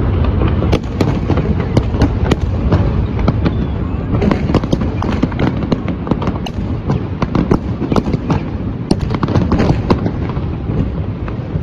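Fireworks display: aerial shells bursting in a dense, irregular string of sharp bangs and crackles over a continuous low rumble.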